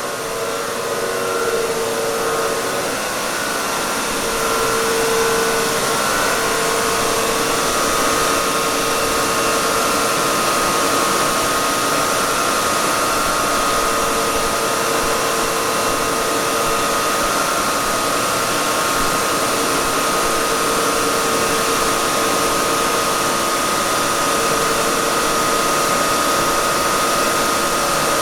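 Weeke BHC Optimat Venture 1 CNC machining center running with its vacuum pump on while its axes are jogged: a steady whirring hum with a steady whine, one tone coming and going in the first few seconds.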